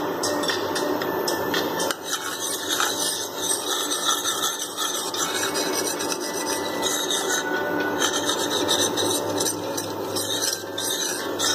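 Metal spoon scraping and rubbing across the bottom of a frying pan, a continuous rasping.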